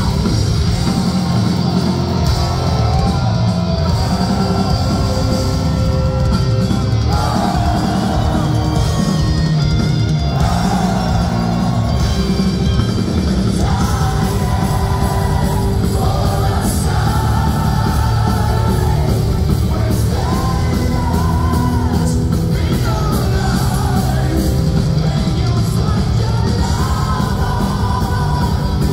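Live heavy metal band playing, with distorted electric guitars, bass and drums under long held sung vocal lines, heard from within the crowd.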